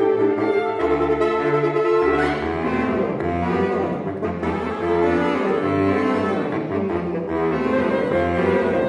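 Saxophone quartet (soprano, alto, tenor and baritone saxophones) playing a tango in close harmony. Sustained chords move over a low bass line that comes in about a second in.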